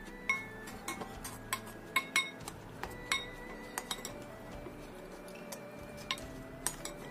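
Soup spoon clinking and scraping against a ceramic bowl while the last of the soup is scooped up: about a dozen irregular, sharp clinks with a short ring, bunched in the first half and sparser near the end.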